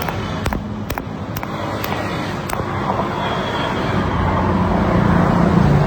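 A few sharp knocks in the first two and a half seconds, then a steady machine rumble with a low hum that grows louder toward the end.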